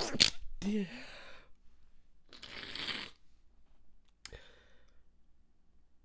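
A person stifling sneezes: a sharp, held-in burst at the start with a short voiced catch after it, a long breathy rush of air in the middle, and another short stifled burst a little after four seconds.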